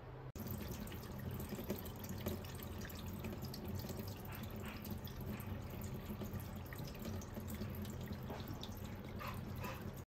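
Wash water draining from a portable mini washing machine's drain outlet, pouring in a steady stream into a stainless steel kitchen sink.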